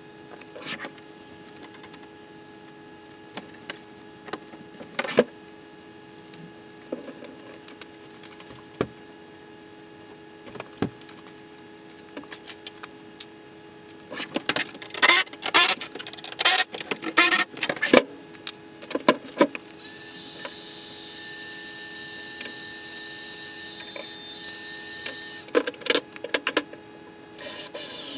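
Handling clicks and clatter, with a dense flurry about halfway through, then a heat gun runs steadily for about five seconds, a hiss of air with a thin whine, warming plexiglass so it will bend, then stops.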